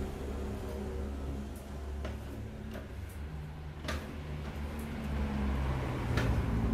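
A few sharp, light clicks from a homemade go-kart steering linkage as the steering arm swings and its tie rods and rod-end ball joints shift, over a steady low hum.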